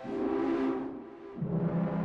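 Dave Smith Instruments Prophet 6 analog polyphonic synthesizer playing a preset patch with no external effects: a note with a bright attack that fades, then, about a second and a half in, a lower note.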